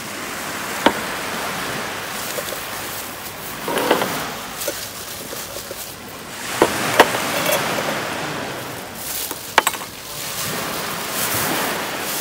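Steady wash of sea surf, with a few sharp clicks and knocks scattered through it.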